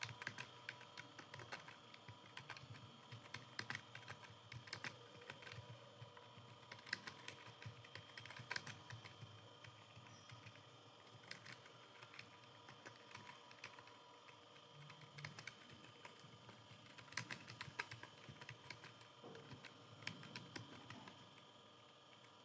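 Computer keyboard keys clicking irregularly as someone types steadily through a typing speed test. The clicking is faint, with a faint steady electrical whine underneath.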